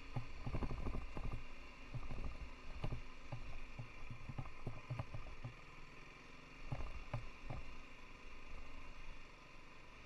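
BMW G 310 GS's single-cylinder engine running steadily at low speed on a rough dirt track. Irregular knocks and rattles come from the bike jolting over stones and ruts, busiest in the first second or so and again around seven seconds in.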